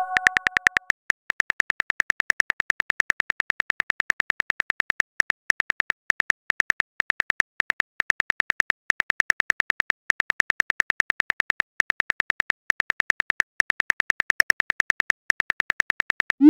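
Texting-app keyboard click sound effect: a short click repeated steadily, several times a second, as a message is typed out. A chime dies away in the first second, and a rising send tone begins at the very end.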